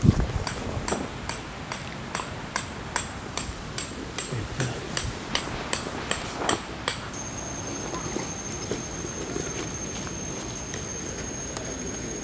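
A quick run of sharp knocks, about two to three a second, for around seven seconds, then a steady high-pitched whine that holds to the end.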